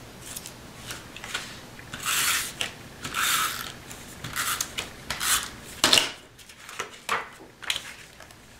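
Cardstock being handled on a cutting mat: paper sliding and rustling in two brief swishes, then a few light clicks and taps as the piece is set down and pressed onto the page.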